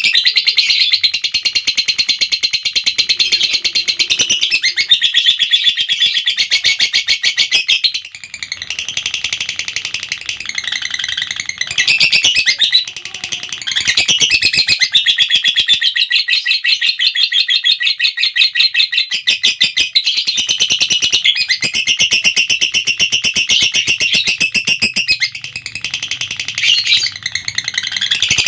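Lovebird giving its long 'ngekek' call: a rapid, high-pitched chattering trill held for many seconds at a time, with a few short breaks.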